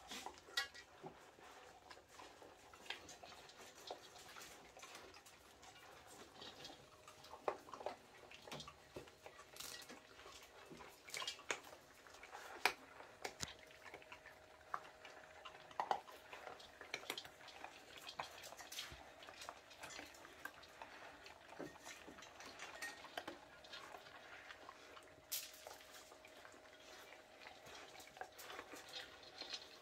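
Whippet puppies and a cat eating dry kibble from a shared bowl: irregular crunching and small clicks of kibble and teeth against the bowl.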